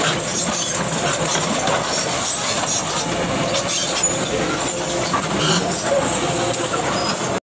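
Engine of heavy equipment running steadily, mixed with a busy outdoor din and faint voices; it cuts off abruptly at the very end.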